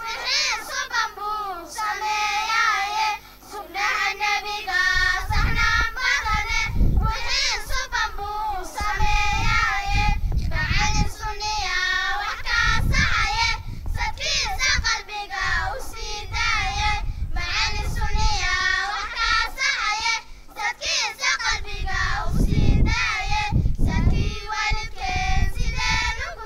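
A group of young girls singing a nasheed (Islamic devotional song) together into a handheld microphone.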